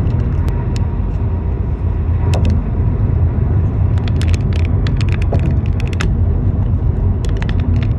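Car driving at highway speed, heard from inside the cabin: a steady low rumble of road and tyre noise, with scattered sharp ticks, a cluster of them about halfway through.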